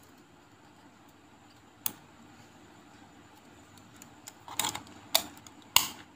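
Small sharp clicks of tweezers tapping and prodding inside an opened wristwatch: one click about two seconds in, then several louder ones near the end, over a faint steady hum.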